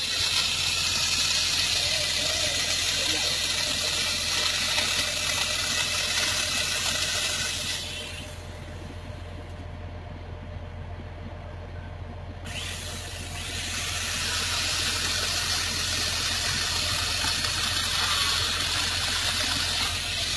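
Truck-mounted crane working a fallen tree trunk, its engine running steadily under a loud hiss. The hiss fades out about eight seconds in and comes back some four seconds later.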